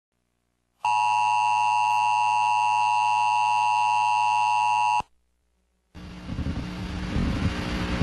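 Emergency Alert System attention tone: a loud, steady dual-tone alarm that cuts off sharply after about four seconds. After a second of silence, a rough hiss with a low hum starts near the end.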